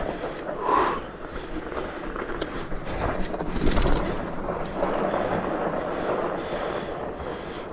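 Fat bike rolling over a snowy, rocky singletrack: rough tyre and trail noise with the bike rattling over bumps, and wind on the microphone. A couple of louder knocks come about a second in and again a few seconds later.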